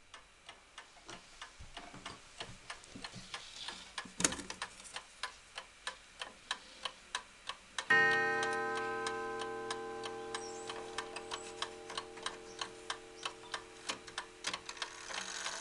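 Antique E. Ingraham Wizard 8-day mantel clock ticking at about two ticks a second, with a sharp click about four seconds in. About halfway through, as the minute hand is turned to the half hour, the striking train strikes once and the tone rings on, slowly fading.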